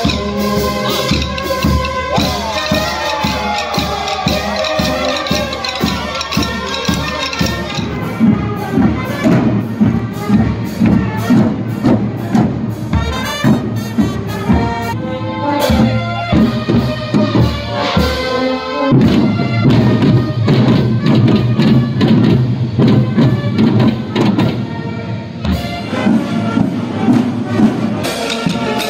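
Tamborrada marching band: rows of snare drums beaten together in a steady march rhythm, with brass playing the tune over them, strongest in the first several seconds.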